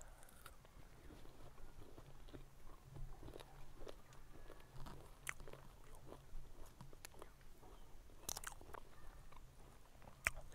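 A person biting and chewing fruit close to a clip-on microphone: small wet clicks throughout, with a louder bite about eight seconds in and another just before the end.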